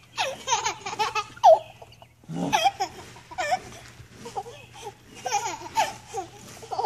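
A toddler boy laughing and squealing in several short, high-pitched bursts, with a little babbling in between.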